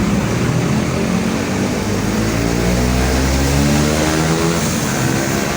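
A large bus diesel engine running close by, its pitch drifting slowly up and down as the engine speed changes.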